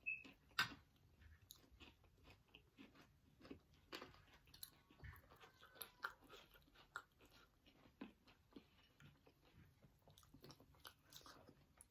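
Faint, close chewing and crunching of fried, crunchy snack food (spicy chatpate puffed-rice mix and pakoda fritters), with scattered small mouth clicks and crackles.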